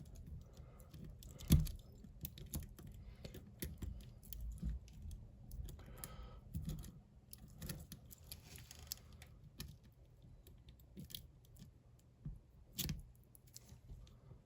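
Lock pick and tension wrench working inside a bike lock's cylinder: faint scattered metallic clicks and scrapes, with two louder clicks, one about a second and a half in and one near the end.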